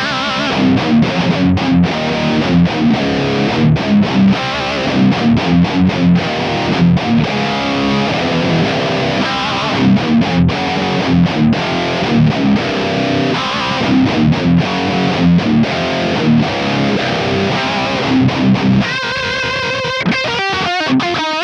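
Heavy, chunky distorted electric guitar played through a guitar amp and picked up by an Audix i5 dynamic microphone. It plays a riff of rapid, repeated low chords, then near the end held notes that waver in pitch.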